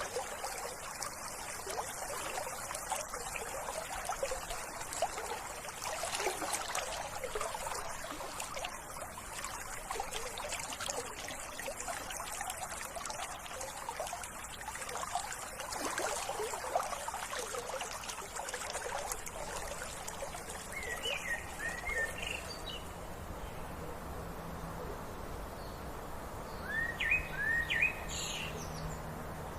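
Water trickling steadily, which eases about two-thirds of the way through. A small bird calls in short chirping phrases twice in the latter part.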